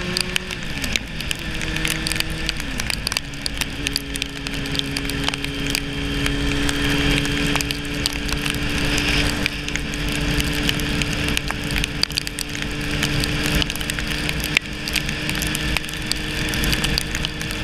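Sport motorcycle engine upshifting twice, its pitch dropping sharply just after the start and again about three seconds in, then running at a steady cruise. Wind rush and tyre hiss on the wet road go on throughout, with scattered ticks of raindrops hitting the camera.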